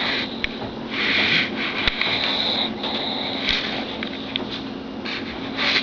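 Pug snoring: a series of hissy, rasping breaths, roughly one a second.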